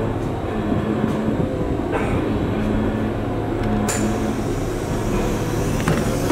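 Ex-Meitetsu Kiha 8500 diesel railcar heard from inside the car while running: a steady engine drone with the rumble and rattle of the car body and wheels on the track. A sharp clank about four seconds in.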